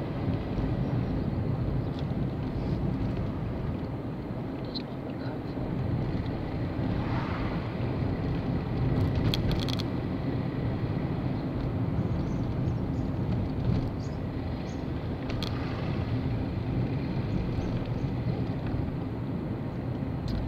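Steady engine and road noise of a compact car, heard from inside the cabin while driving. There is a brief cluster of sharp clicks about nine seconds in and another click near the end.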